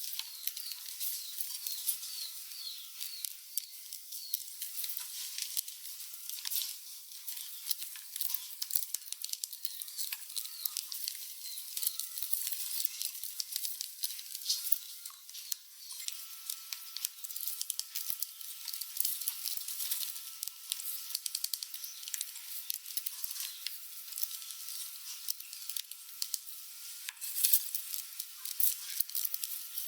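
Rats gnawing and scrabbling at food: dense, thin crackling with rapid irregular clicks.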